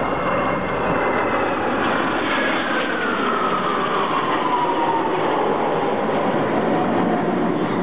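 Jet engines of a six-ship formation of Kawasaki T-4 jets passing overhead: a steady roar with a turbine whine that falls slowly in pitch as the jets go by.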